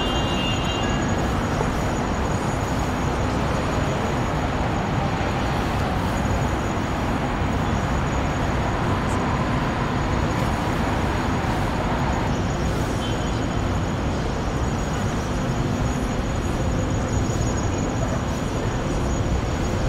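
Steady city street traffic noise: an even wash of vehicles passing, with no single one standing out.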